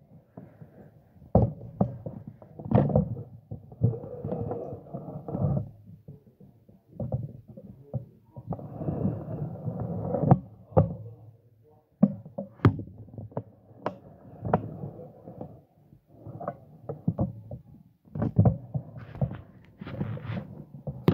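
Handling noise on a phone's microphone as the phone swings about on a ring-light stand: many sharp knocks and thumps among stretches of rubbing and rustling.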